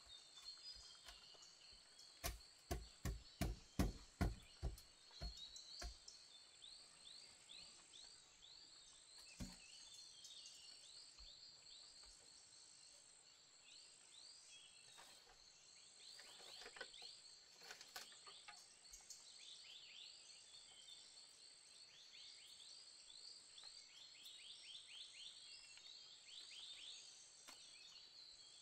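A quick run of about ten sharp knocks, a little under three a second, about two seconds in, as the bamboo poles of the shelter door are knocked into place. Under it, a faint forest background of a steady high insect drone with many short falling chirps.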